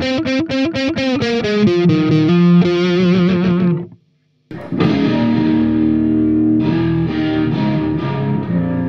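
Electric guitar, a 1977 Gibson RD with Lace Dissonant Aggressors humbuckers, played through an Engl Invader 150 amp with a lightly overdriven crunch tone: single-note phrases with wavering, vibrato-like notes. About four seconds in the playing cuts off sharply, and after half a second of silence a new phrase of held notes and chords begins.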